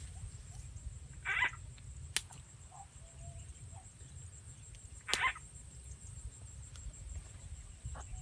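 Frog croaks: two short calls about four seconds apart, with a sharp click between them, over a steady low rumble.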